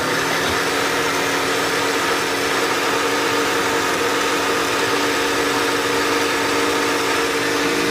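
Cuisinart SmartPower countertop blender running at one steady speed, its motor humming as it churns a thick smoothie of greens, fruit and yogurt. Extra juice has been added to the blend, and she reckons the blender is no longer straining.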